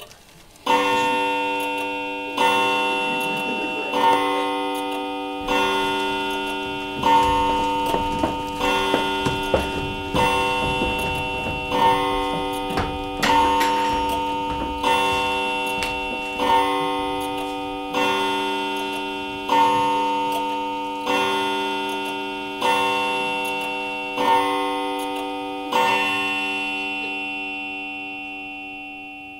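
A clock chime struck seventeen times, one bell-like stroke about every second and a half, each ringing on and fading, the last dying away slowly. This is the English clock's seventeen strokes from Ionesco's stage direction, sounding as the play starts over.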